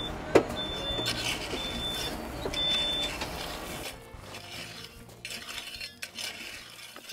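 Hand tools, a hoe and then a steel rake, scraping and dragging through loose gravel and dirt, with one sharp knock about a third of a second in. A tractor engine runs underneath during the first half, then drops away.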